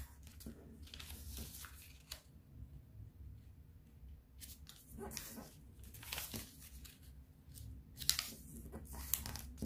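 Sheet of colour origami paper rustling and being creased by hand in short, irregular scrapes as its corners are folded in to the centre.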